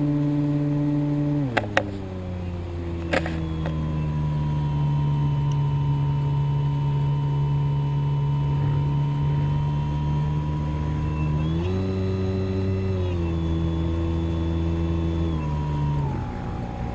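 Electric motor and propeller of a Razor 3D RC plane running, a steady whine heard close up as from a camera mounted on the plane. Its pitch drops about a second and a half in as the throttle comes back, rises briefly around twelve seconds in, then steps down twice near the end; a few sharp clicks sound early on.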